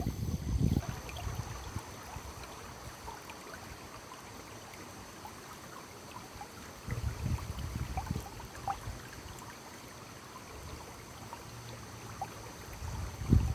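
A stream flowing and trickling steadily, with small scattered plinks of water. Low buffeting rumbles come and go near the start, about seven seconds in, and again near the end.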